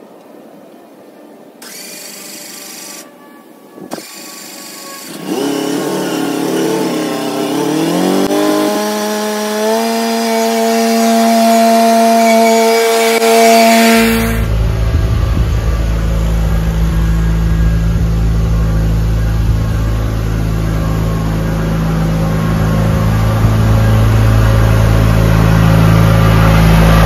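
Toro 616Z zero-turn mower's Onan 16 hp opposed-twin engine starts about five seconds in, rises in pitch as it revs up, then runs steady. From about halfway, a lower, steady engine drone as the mower is driven.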